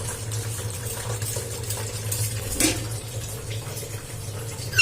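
Water running steadily, with a faint steady low hum beneath it.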